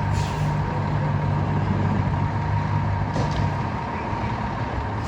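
Fire apparatus diesel engine running with a steady low rumble, and a short hiss of air about three seconds in.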